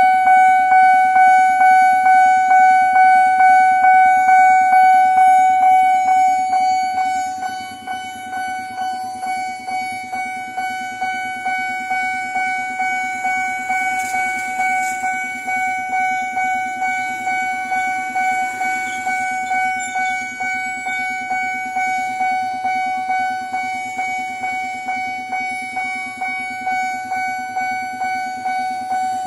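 Railway level-crossing warning bell ringing: an electronic ding repeating about twice a second on one steady pitch. It drops somewhat in loudness about seven seconds in.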